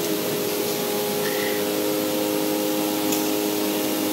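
Vacuum blower of a flatbed digital cutting machine running steadily, holding the sheet down on the table: an even hiss with a low, steady hum.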